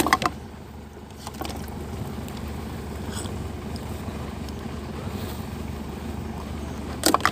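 Steady low engine drone with wind on the microphone, and brief crackles of plastic sheeting being handled at the start and again near the end.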